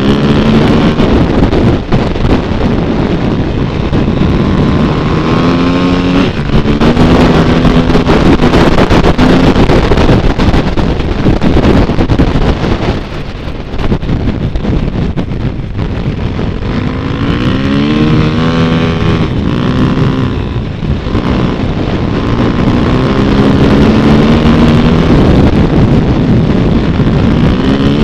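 Motorcycle engine under way, its pitch climbing several times as the throttle is opened and easing off for a moment about halfway through, with wind rushing over the microphone.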